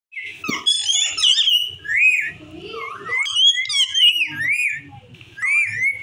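Parakeets calling: repeated high, whistled chirps that arch up and down in pitch, several overlapping near the start, then coming about every half second.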